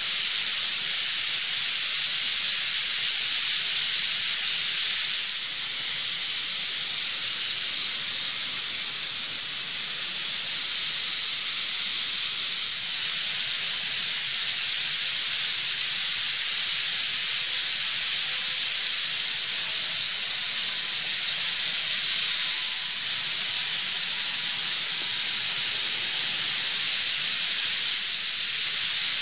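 A vast flock of bramblings flying overhead in their thousands: their calls and wingbeats blend into one steady, high hiss.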